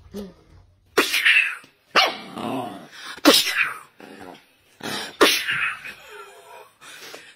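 A puppy making about five short, sharp sounds a second or so apart, each starting suddenly and fading within half a second.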